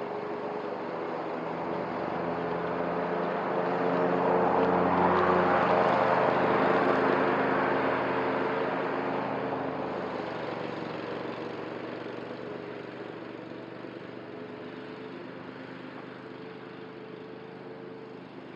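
Cub Cadet ZTS1 zero-turn mower running and mowing, its engine and 46-inch cutting deck growing louder as it comes near. It is loudest about five to seven seconds in, then fades as it drives away.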